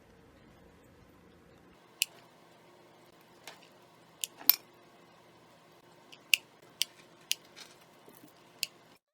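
Handling noises as small felt boots are worked onto a sock doll's feet: about ten small, sharp clicks and taps at irregular intervals over a faint steady hum.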